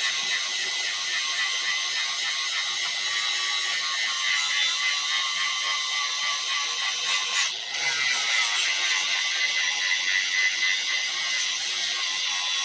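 Handheld electric angle grinder with an abrasive disc grinding a steel sickle blade: a steady high motor whine over a harsh grinding hiss, which dips briefly a little past halfway before carrying on.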